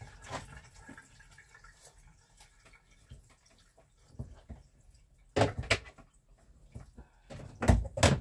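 Handling sounds inside the plastic tub of a portable twin-tub washing machine: faint drips and small clicks, then two clusters of sharp knocks, a little past halfway and again near the end.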